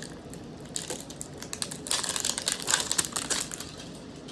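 A Pokémon card mini tin being unwrapped and opened by hand: rapid crackling and small clicks, busiest from about two to three and a half seconds in.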